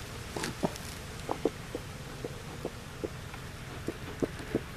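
About a dozen short wooden clicks and creaks at irregular intervals as a beehive frame is pried loose and lifted out of the hive body, over a steady low hum.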